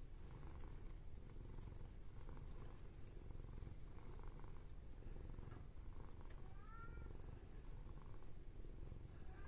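A cat purring steadily, with one brief meow about two-thirds of the way through.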